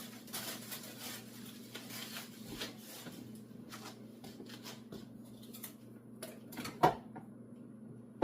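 Plastic juicer parts and packaging being handled: scattered light clicks and clatter, with one louder knock near the end, over a faint steady hum.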